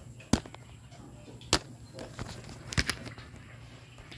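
Three sharp knocks about a second apart, the last a quick double, over a faint steady low hum.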